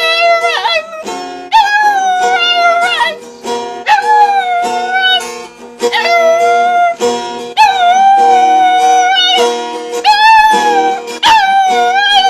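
Dog howling along with music: a series of long, wavering howls, one after another with short breaks, over sustained musical accompaniment.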